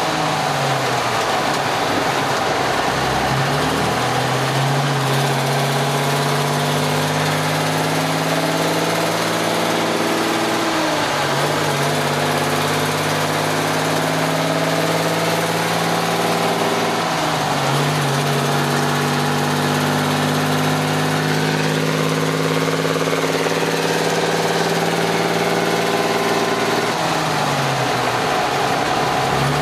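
1965 White Freightliner cabover's Cummins NHC-250 inline-six diesel on straight pipes, pulling along at road speed, heard from inside the cab. The engine note is steady but dips and recovers about four times.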